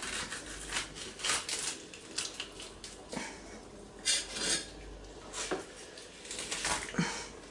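Paper towel rubbing and scraping over a sole on a plastic cutting board in a series of irregular scratchy strokes, as the last of the fish's skin is worked off.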